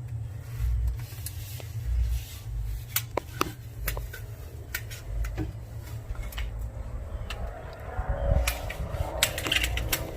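Masking tape being pulled off the roll and pressed along aquarium glass: scattered clicks and crackles, busiest near the end, over a steady low hum.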